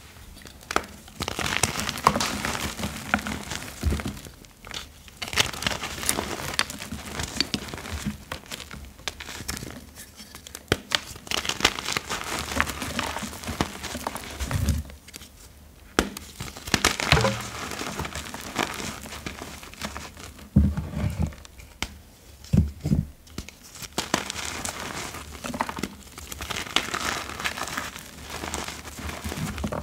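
Reformed gym chalk blocks crushed and crumbled between bare hands: dense, crisp crunching in bouts with short pauses, along with soft powdery squeaks and rustles as the loose chalk is squeezed and rubbed in the palms.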